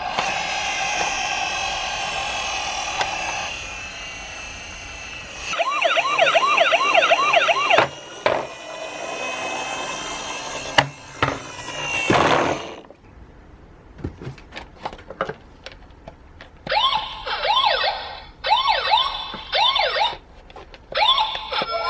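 Toy police car's electronic siren cycling through patterns: a held wail, then a fast warbling yelp about six seconds in, a rising whoop near twelve seconds, a few clicks, and from about seventeen seconds bursts of short repeated rising whoops.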